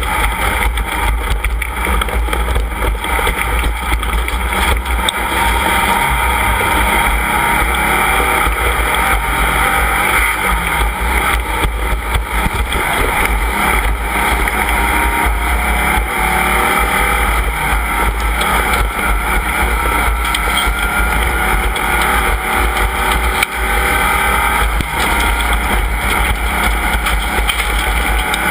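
Off-road race vehicle engines running loud and continuous, the engine pitch rising several times in the second half as they accelerate.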